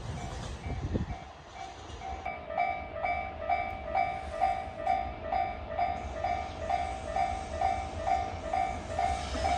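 Japanese level crossing warning bell dinging in a steady rhythm of about three strikes a second, with a second, slightly lower tone joining about two seconds in, over the low rumble of a freight train.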